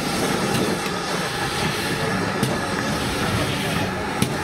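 GWR 57xx-class pannier tank steam locomotive moving slowly past with a Pullman coach: the steady running noise of the passing train, with a couple of sharp clicks in the second half.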